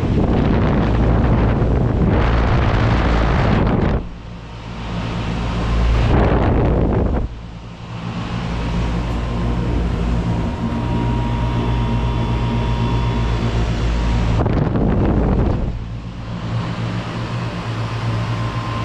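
2004 AirEase Concept 1000 heat pump running in heat mode, its outdoor unit giving a steady, layered hum. Three times, gusts of wind rush over the microphone, the first lasting about four seconds; a faint steady whine joins the hum about halfway through.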